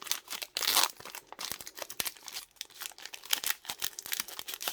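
Foil booster-pack wrapper crinkling and being torn open, with many small crackles and one longer rip about half a second to a second in.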